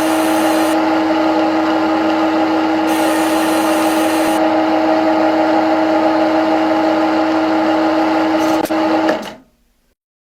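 CNC lathe running a cut, most likely the threading pass: a steady machine whine over grinding cutting noise, with two brief bursts of high hiss. It cuts off suddenly about nine seconds in.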